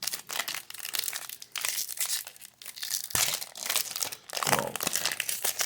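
Wrapper of a baseball card pack being torn open and crinkled by hand: a dense run of sharp crackles and rips.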